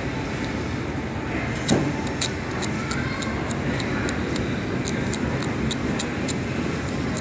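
Steady background hum. From about a second and a half in, a run of small sharp clicks and ticks comes a few per second, with two heavier knocks at the start of the run, as hands handle a phone and its thin plastic protective film on a desk mat.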